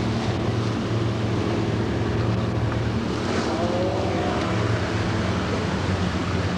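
Boat engine running at a steady pitch, a low even hum, with wind and water noise over it.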